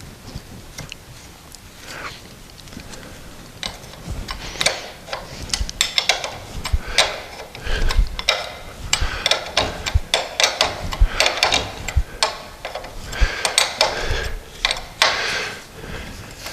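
Ratchet spanner clicking and metal tool clatter as a new nylock nut is run down and tightened onto the idler arm shaft, in irregular runs of clicks starting about four seconds in.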